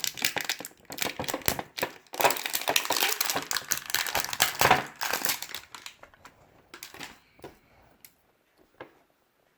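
Plastic food packaging being handled and torn open, crinkling and crackling for about five seconds, then a few light clicks as it dies away.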